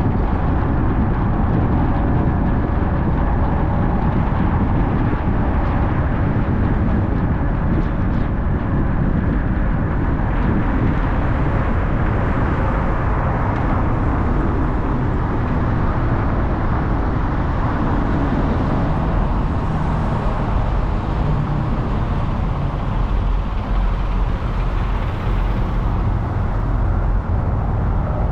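Steady road noise of a car driving: tyres on pavement and the engine, an even low rumble that holds level throughout.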